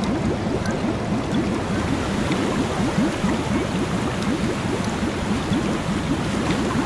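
Shallow water gurgling and lapping: a steady wash with many quick rising gurgles, several a second.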